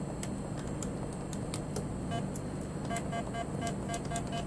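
ATM keypad beeping as keys are pressed to sign in with the operator code: one short beep about two seconds in, then a quick run of about seven beeps in the last second and a half, over a steady low hum.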